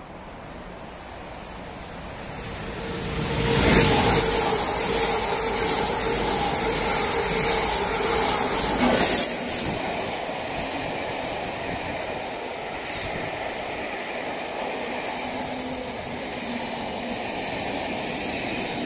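Class 90 electric locomotive hauling a train of coaches through a station at speed. It rushes in about three seconds in and is loudest for the next five seconds, with a steady tone over the rush. Then the noise drops suddenly and the coaches roll past more quietly.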